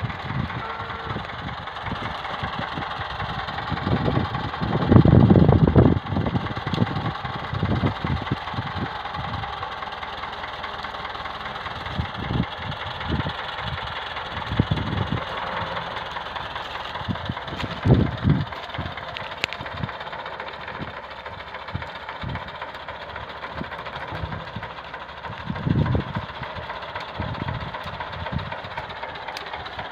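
Farm tractor's diesel engine running steadily as it tows a trailer. Low rumbling bursts come several times, the loudest about five seconds in.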